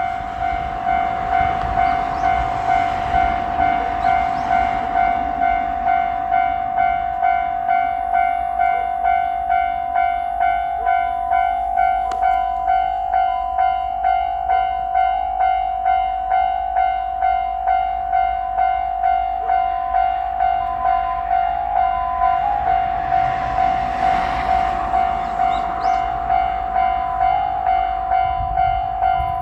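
Japanese railroad crossing warning bell ringing its electronic "kan-kan" ding steadily, about one and a half strikes a second. Twice, once a few seconds in and again about three-quarters of the way through, the rushing noise of a passing train swells up under it.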